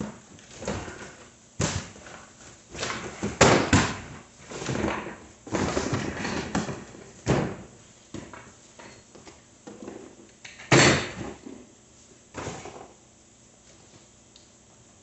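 Cardboard bike box being opened and unpacked by hand: irregular scraping, rustling and knocking as flaps are pulled back and parts in plastic bags are lifted out. The loudest knocks come about three and a half seconds in and about eleven seconds in.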